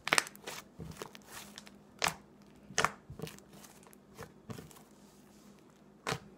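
Thin, sticky butter slime being squished, pressed and pulled by hand on a wooden table, giving a series of sharp crackly pops and squelches, several over a few seconds.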